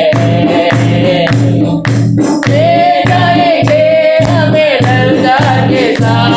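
Hindi Christian worship song: voices singing a melody over instrumental backing with a steady beat.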